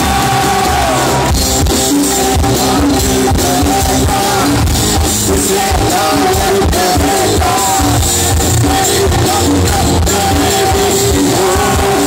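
Live rock band playing: drum kit, electric guitars and bass under a lead melody line with quick wavering turns. A long held note opens it, the melody moves from about a second in, and a held note returns near the end.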